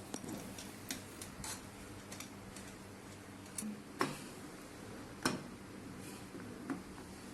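Light clicks and taps of machine parts being handled and fitted together during assembly, with two sharper knocks about four and five seconds in.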